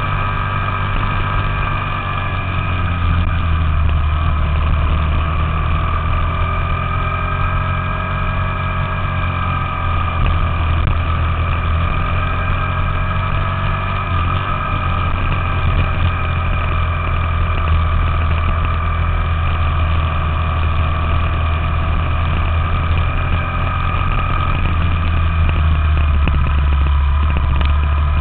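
Small Honda four-stroke minibike engine running steadily while riding, heard on board, its note rising and falling gently with speed and a little louder near the end.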